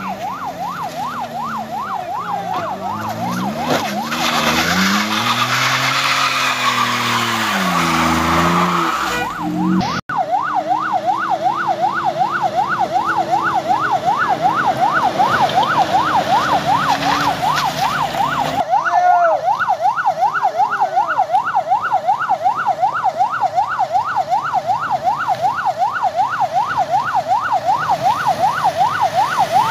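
Electronic siren sounding a fast yelp, its pitch rising and falling about three times a second without a break. In the first half a vehicle engine revs up and down under it.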